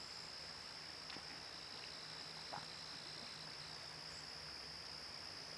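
Faint, steady rush of a shallow river running over stony riffles, with a steady high-pitched tone throughout and a faint tick about two and a half seconds in.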